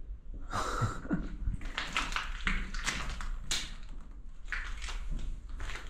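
Footsteps and scuffing on a gritty floor of dirt and debris: irregular taps and scrapes.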